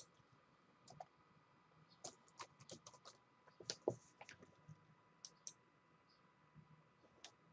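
Faint computer keyboard keystrokes and mouse clicks: scattered single clicks, with a quick run of keystrokes from about two seconds in.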